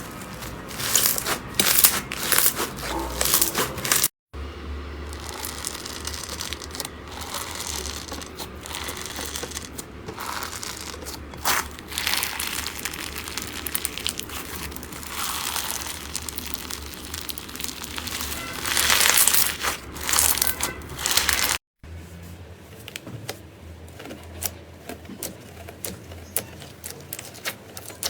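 Slime being squeezed and pressed with the fingers, crackling and crinkling in rapid clicks. The sound breaks off abruptly twice, about four seconds in and again near the end, and resumes each time.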